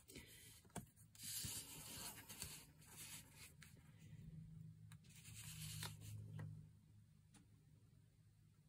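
Faint rustling and rubbing as the drawing paper is shifted about on the work surface, in several short bouts with a few light clicks in between.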